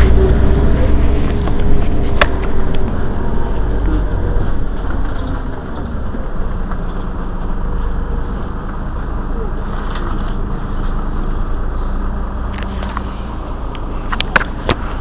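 Heuliez GX 327 city bus's rear-mounted engine idling, a steady low rumble. It is heavier for the first few seconds and eases about five seconds in. A few sharp clicks come near the end.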